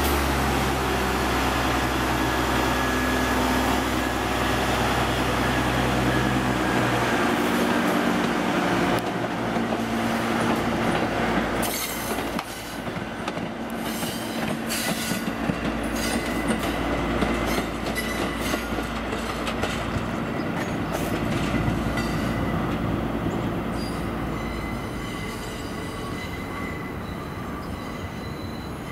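Diesel track geometry car running close by, its engine a steady low drone for the first several seconds. Then its wheels click over rail joints and switches, with a thin, steady wheel squeal in the later part.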